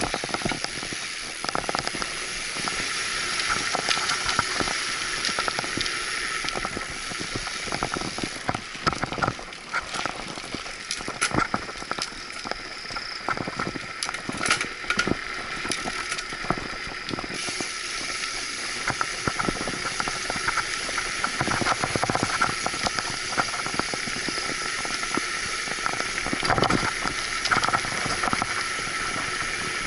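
Mountain bike riding along a concrete path: a steady hiss of rolling tyres and rushing air, with frequent short clicks and knocks.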